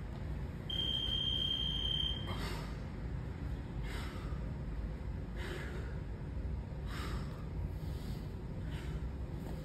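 A digital gym interval timer gives one long high beep about a second in, as its countdown rolls over to a new round. After it a person breathes out hard about every second and a half while doing sit-up reps, over a steady low rumble.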